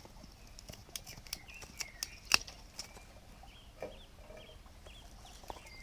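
Small kindling sticks being cut up by hand for a wood-burning camp stove: a run of sharp snaps and clicks, the loudest a crack about two seconds in. Birds chirp faintly behind.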